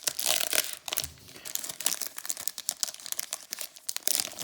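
Foil wrapper of a Pokémon booster pack crinkling in quick, irregular crackles as it is handled.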